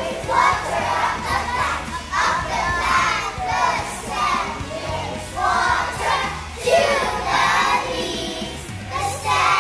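A group of four- to five-year-old children singing together in unison, with music underneath.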